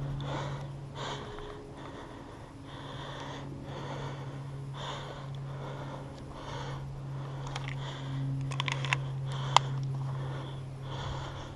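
Heavy breathing of the airsoft player close to the head-mounted microphone, in and out about once a second over a steady low hum. A few sharp clicks come about eight and a half seconds in, then one louder snap.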